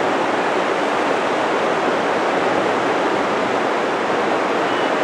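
River water rushing over shallow rapids and rocks: a steady, even rush with no breaks.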